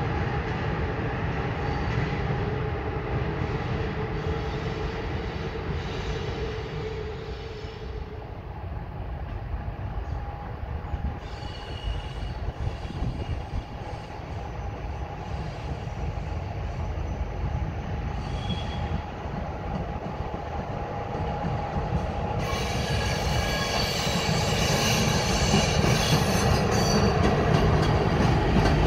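Train rolling through with a steady rumble and squealing wheels; it grows louder and brighter near the end.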